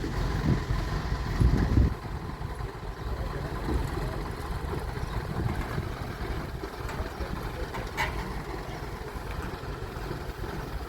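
Engine of a rice threshing machine running steadily, a low continuous rumble, with a louder surge a little under two seconds in and a single sharp click about eight seconds in.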